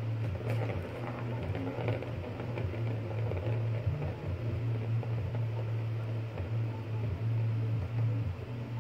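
Light clicking and rattling in the first few seconds as a cat paws the plastic ball around the track of a circular cat scratcher toy, over a steady low hum.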